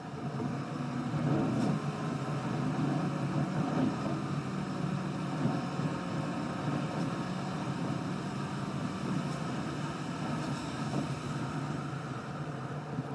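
A car driving on a road, heard from inside the cabin: steady engine and tyre noise.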